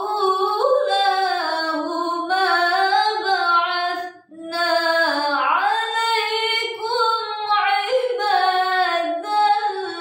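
A young woman's solo voice in melodic Quran recitation (tilawah), holding long notes with gliding ornaments. She pauses briefly for breath about four seconds in, then carries on.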